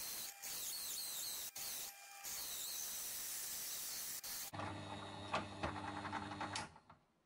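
Benchtop drill press turning a large hole saw at slow speed as it cuts through 1 cm plywood: a steady hissing rasp of the teeth in the wood. About four and a half seconds in the cutting stops and the press's motor hum runs on with some light rattling, then drops away near the end.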